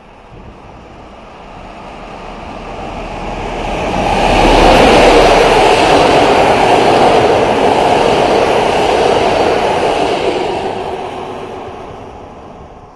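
Przewozy Regionalne regional passenger train passing at speed. The rush and clatter of its wheels on the rails build over about four seconds, stay loud for about six, then fade as it draws away.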